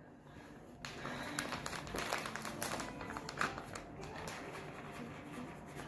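Crackly rustling and light tapping that starts about a second in: food and kitchen things being handled while the macaroni and cheese is made.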